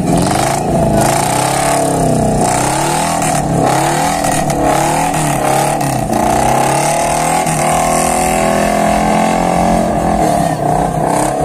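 Small pickup truck's engine revving hard while the truck drifts, its pitch rising and falling again and again.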